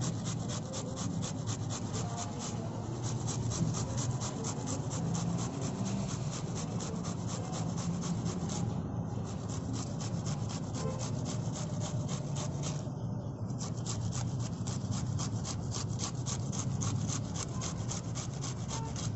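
Raw cauliflower being grated on a stainless steel box grater: a steady, rhythmic rasping of about five strokes a second, pausing briefly twice.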